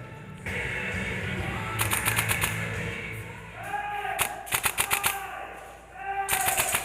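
Airsoft rifle firing three short full-auto bursts of rapid snapping shots, a couple of seconds apart.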